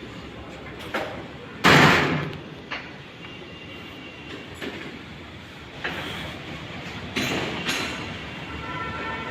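A few sudden knocks and clanks over a steady background noise, the loudest about two seconds in, like a door or panel being handled.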